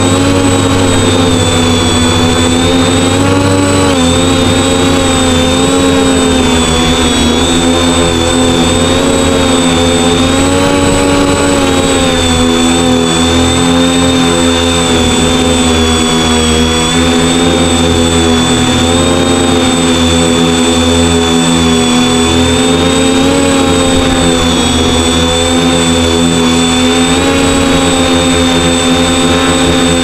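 The electric motors and propellers of a 1.16 kg quadcopter, heard close up from its onboard camera: a loud, steady buzzing whine whose pitch wavers up and down as the motors change speed to hold the craft steady in the wind.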